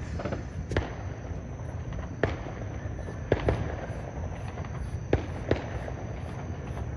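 Distant fireworks going off: about six sharp pops and bangs at irregular intervals over a continuous low rumble.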